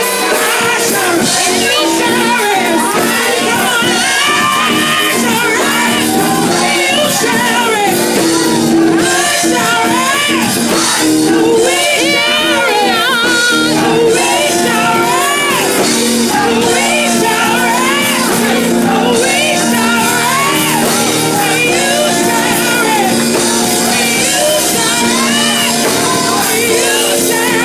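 Live gospel singing: a woman sings through a microphone over musical accompaniment, with the congregation shouting in praise.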